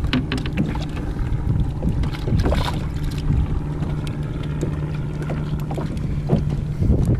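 Wind on the microphone and water lapping against a kayak hull, under a steady low hum. Scattered small clicks and taps come through, most of them in the first few seconds.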